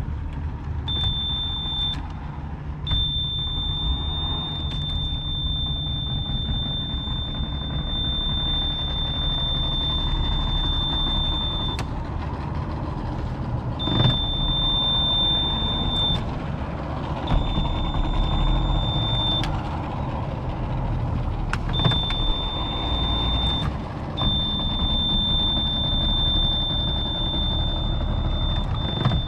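Boat's outboard motor running at low speed while the boat is manoeuvred, with a high steady tone that cuts in and out every few seconds and a few sharp knocks, the loudest about halfway through.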